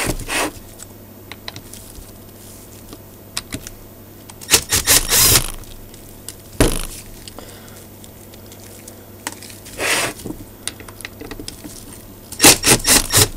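Metal clinks, rattles and scrapes of screws, washers and a driver bit being worked on the motor mounting plate inside an antenna rotator's cast housing. They come in a few short clusters, the busiest near the end.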